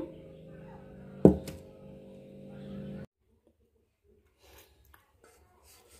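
A steady low hum with a single sharp knock about a second in; the sound cuts off abruptly about three seconds in, leaving only a few faint soft clicks.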